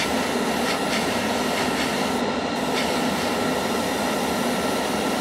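Gravity-feed airbrush spraying paint: a steady hiss of compressed air.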